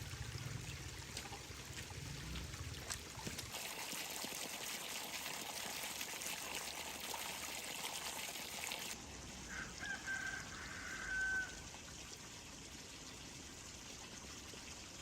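Water trickling steadily. About ten seconds in, a bird gives one drawn-out call lasting roughly two seconds.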